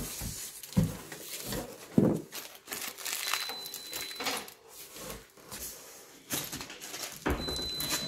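Cardboard box and packing material rustling and scraping as a metal chair frame with foam-padded legs is handled and lifted out, with a few sharp knocks along the way.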